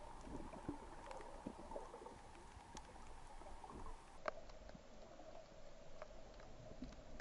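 Faint underwater ambience recorded through an action camera's waterproof housing: a low rumble with scattered small clicks and crackles over a faint steady hum. The hum drops in pitch about four seconds in.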